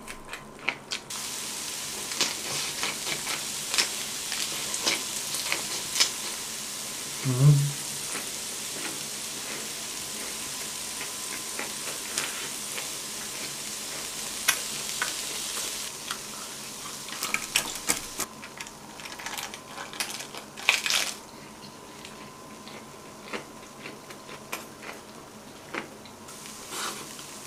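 Marinated pork ribs and king oyster mushrooms sizzling on a hot griddle, steady for the first fifteen seconds or so and then quieter, with scattered ticks and taps of chopsticks. A brief low hum from the eater about seven seconds in.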